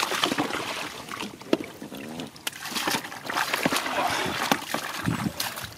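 Shallow muddy water splashing and sloshing irregularly as hands work through it after fish, with many sharp splashes.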